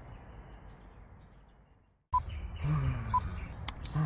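Outdoor ambience with faint, evenly repeated insect-like chirping, fading out to silence about halfway through. It cuts abruptly to a louder room sound with a low rumble and a short beep about once a second.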